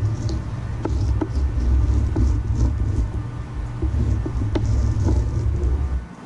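Fillet knife cutting into a tilefish behind the head, giving a few short clicks and scrapes. Under it runs a steady low rumble, the loudest sound, which drops away near the end.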